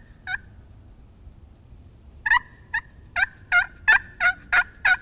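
Turkey call worked by hand, sounding hen turkey yelps: one yelp, then after a pause a steady run of about eight yelps, each note breaking between two pitches.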